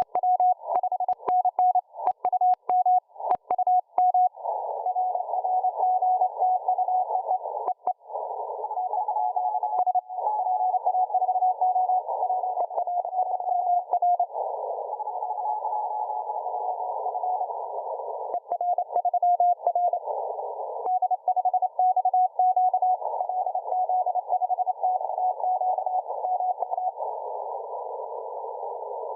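Morse code (CW) signal received on a shortwave SDR receiver: a single mid-pitched tone keyed on and off in dots and dashes. From about four seconds in, band hiss fills the narrow CW filter behind the tone.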